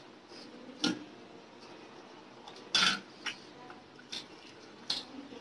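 About five short knocks and clinks of stainless steel plates and a small steel bowl, the loudest about three seconds in, amid the quiet sounds of rice and chicken curry being eaten by hand.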